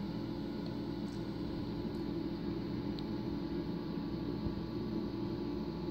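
Steady low mechanical hum over a soft hiss, unchanging throughout.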